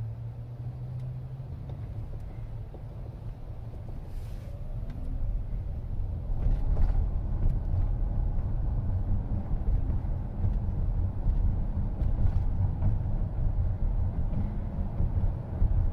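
Road and tyre rumble inside a moving car's cabin: a steady low drone that grows louder about five or six seconds in.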